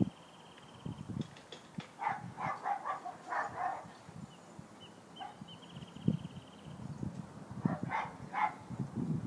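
A dog barking: a quick run of short barks about two seconds in and a few more near the end, with a high, fast-pulsing trill in between.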